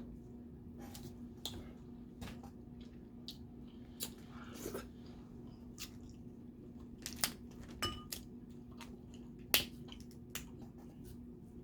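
Snow crab legs and crawfish shells being cracked and snapped open by hand and teeth, with chewing: a dozen or so scattered sharp cracks and clicks, the loudest about two-thirds of the way through.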